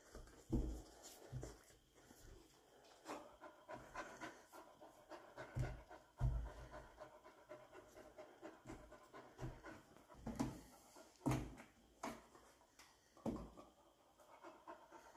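A dog panting while it jumps up at a kitchen counter, with irregular low thumps and clicks from its paws against the cabinet and stone countertop.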